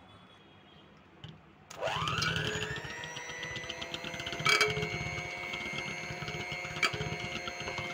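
Electric hand mixer switched on about two seconds in: its motor whine rises quickly and settles into a steady high whine as the beaters churn mango puree and cream in a steel bowl, with two short knocks partway through.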